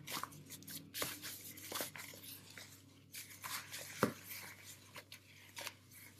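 Hands in thin plastic gloves kneading risen, knocked-back yeast dough in a plastic bowl: faint irregular rustles and soft squishes, with a sharper knock about four seconds in.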